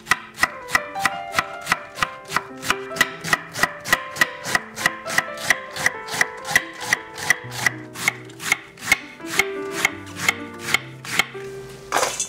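Chef's knife shredding napa cabbage on an end-grain camphor-wood cutting board: a steady run of crisp chops, about three to four a second. Near the end a short swish as the shredded cabbage is tipped into a stainless steel bowl.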